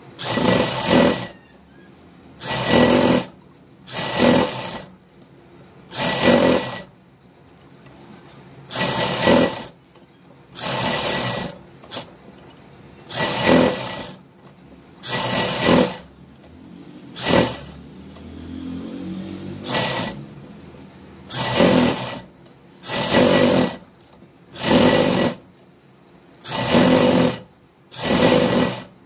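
Domestic sewing machine stitching in short bursts of about a second each, stopping and starting again some fifteen times, with a quieter stretch of slow running near the middle.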